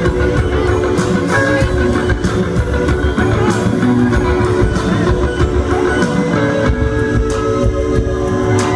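Live rock band playing through a venue PA, led by electric guitar over bass, keyboards and a steady beat, recorded from the audience.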